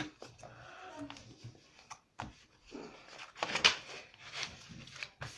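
A sheet of paper being folded into an accordion: a few short crinkling rustles, the loudest about three and a half seconds in.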